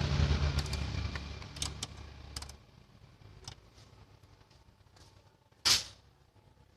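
Diesel engine of a Hyundai Santa Fe running, then dying away and stopping about two and a half seconds in. Scattered light clicks follow, then one short, loud rush of noise near the end.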